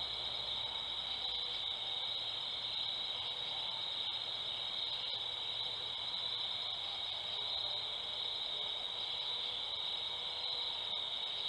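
Night insect chorus of crickets: a steady, high-pitched continuous drone that does not change.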